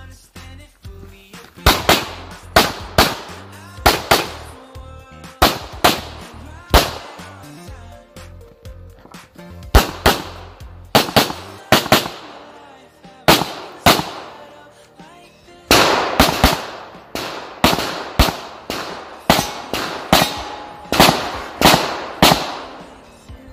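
Handgun shots fired in rapid pairs and strings, with short breaks between strings as the shooter moves between positions.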